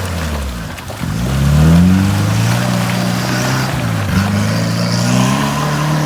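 Suzuki off-road 4x4's engine revving: the revs drop about a second in, climb and hold, dip briefly past four seconds, then climb again and hold.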